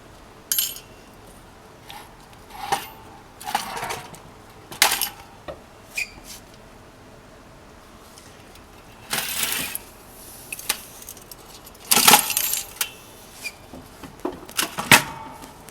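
Irregular metallic clinks and clanks of tools and heavy metal parts as a truck clutch and flywheel are worked off, some hits ringing briefly. There are two longer clattering stretches about nine and twelve seconds in.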